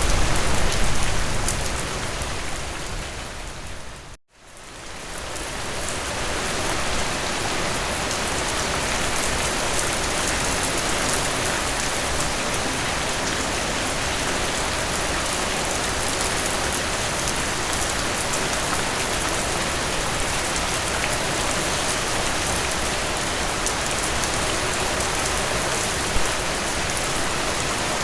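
Steady rain falling, an even hiss of drops. About four seconds in it fades down to a moment of silence, then fades back up and carries on evenly.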